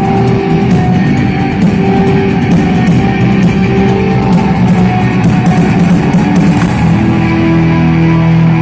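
Rock band playing live, loud, with electric guitars and a drum kit. Near the end the cymbal hits stop and a held chord rings on.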